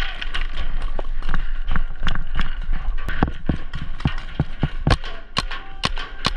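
Paintball markers firing low-impact paintballs: a string of sharp pops at uneven spacing, several a second, over a low steady rumble.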